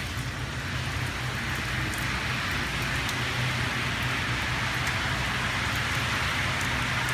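Steady hiss of rain falling on surfaces, with faint scattered ticks of drops and a steady low hum underneath.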